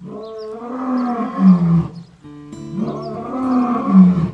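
A lion calling twice, each call about two seconds long with a rise and fall in pitch, over background music.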